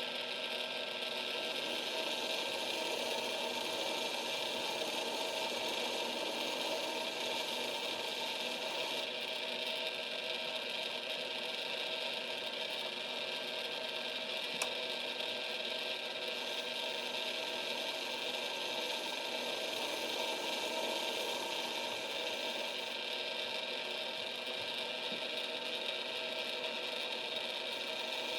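Lathe running steadily with a motor whine of several even tones while turning a taper with the compound slide. A single sharp click about halfway through.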